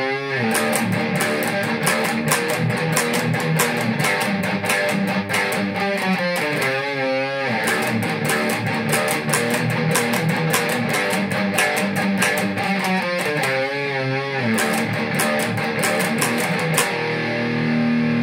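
Syncopated thrash metal riff on a distorted Dean electric guitar, played slowly to break it down: rapid picked notes, two stretches of held notes with vibrato, and a long held note near the end.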